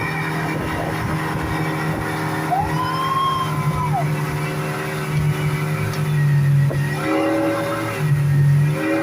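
Speedboat engine running steadily under way, its pitch shifting down and back up a couple of times in the last few seconds.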